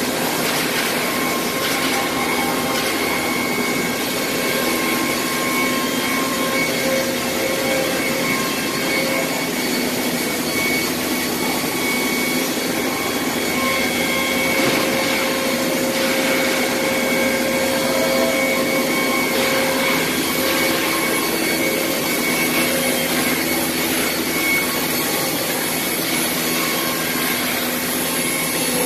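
Twin-table CNC wood router running: a steady, dense rushing noise from its spindles and vacuum hold-down, with several whining tones that come and go.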